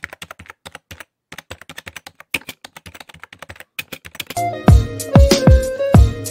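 Computer keyboard typing sound effect: a run of rapid key clicks, with a brief pause about a second in. About four seconds in, hip-hop style music starts, with deep bass hits that fall in pitch and a steady beat.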